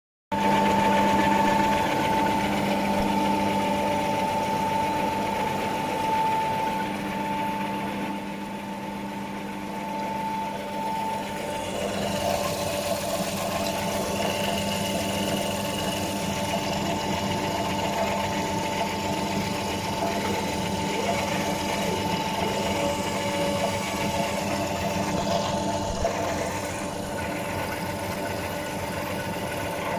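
Small pet-food pellet extruder running under power: a steady mechanical hum from its electric motor and screw, with a constant high whine.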